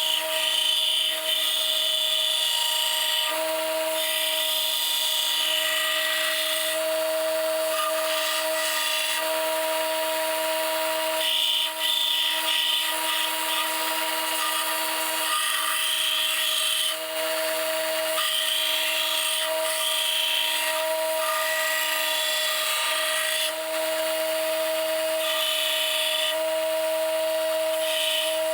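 Electric power tool running steadily with a constant motor whine, its higher hiss swelling and dropping every few seconds as it works the knife steel.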